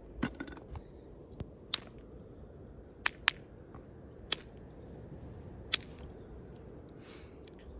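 Hornstone being flintknapped by percussion: a string of sharp clicks as the piece is struck on its edge platforms to knock off flakes. There are five loud strikes at irregular spacing, with softer taps in the first second and a half.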